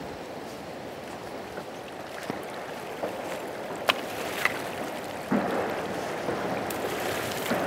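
River water running steadily past a stony bank, with a few sharp clicks around the middle and a sudden louder rush about five seconds in.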